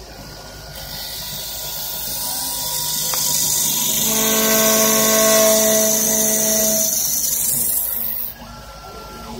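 CNC wood lathe cutting a large spinning wooden blank. A hiss of shaving wood builds over the first few seconds, a whine joins it in the middle, and both stop suddenly about eight seconds in.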